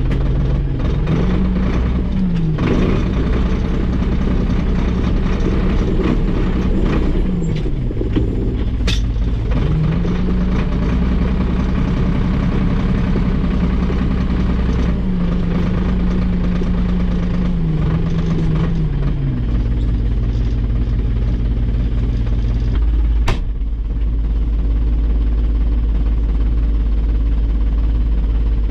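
Valmet 602 tractor's diesel engine running, revved up and held at higher speed for a while, then dropping back toward idle, twice. Two sharp knocks stand out over the engine.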